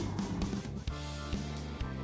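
Background music, with low held notes changing about every half second.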